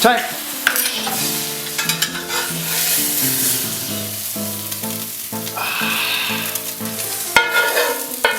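Background music with a melody and bass that step from note to note, over a steady sizzling hiss like food frying in a pan.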